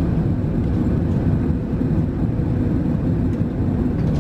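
Steady low roar of an Airbus A380 in flight, engine and airflow noise heard inside the passenger cabin.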